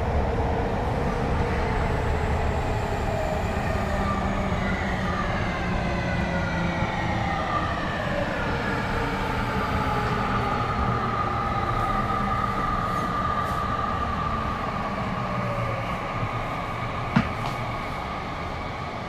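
Tokyu 5050 series train heard from inside the car, its VVVF inverter and traction motors whining in several tones that fall slowly in pitch as the train brakes for the next station, over a steady running rumble. The uploader takes the inverter for a Hitachi unit, perhaps silicon-carbide (SiC). A single sharp click comes near the end, and the running sound eases off as the train slows.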